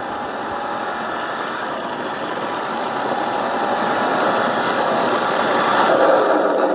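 Road vehicle noise, engine and tyres, growing steadily louder as a car or truck approaches.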